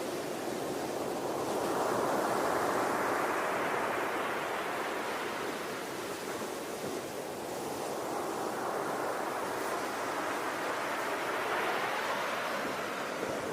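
Ocean waves washing in, a continuous surf hiss that swells twice, about 2 seconds in and again near the end.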